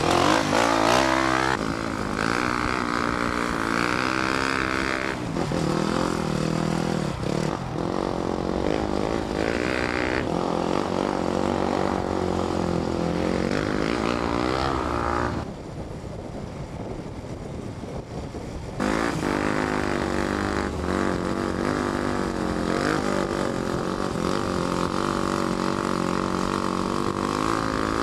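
Dirt bike engines revving and held on the throttle as the bikes are ridden on the back wheel, the engine note rising and falling. The sound changes abruptly several times and goes quieter for a few seconds just past the middle.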